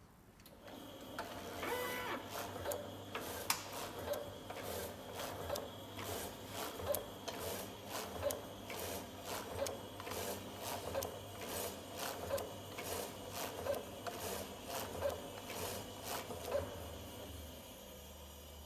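Graef automatic meat slicer running, its carriage driving back and forth to cut cured ham onto a rotating plate, with a regular mechanical clatter of about one and a half strokes a second. The strokes stop near the end, leaving a fainter steady hum.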